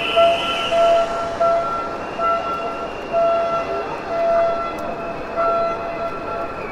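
Protest crowd noise: a steady din with a horn tooting over it again and again in short blasts.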